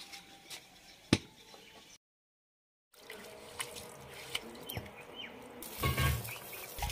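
A single sharp knock about a second in. Then water poured from a steel tumbler splashes and drips on a wet stone grinding slab, and near the end garlic cloves tipped from a steel bowl clatter onto the stone.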